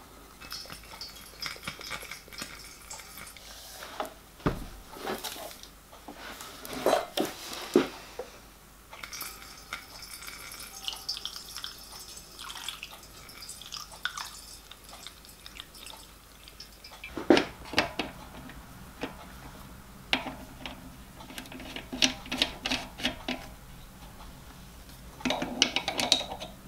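Water trickling and dripping through a funnel into a small copper model-locomotive boiler, filling it for a hydraulic pressure test. Scattered metallic clinks and knocks of tools and fittings are heard, with a cluster near the end as a spanner works on a brass fitting on the boiler top.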